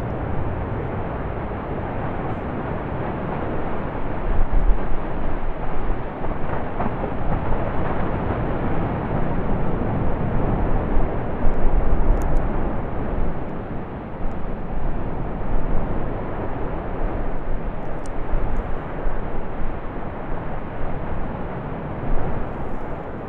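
Lava fountain jetting from an erupting vent: a continuous deep, rushing rumble that swells and surges as the jets pulse, loudest about five and twelve seconds in, with a few faint clicks.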